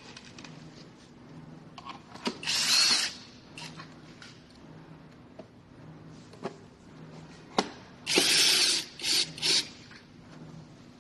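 Cordless electric screwdriver driving in the scooter's bottom-shell screws, whirring in short bursts: one about two and a half seconds in, then three in quick succession near the end, with light clicks and knocks of handling between.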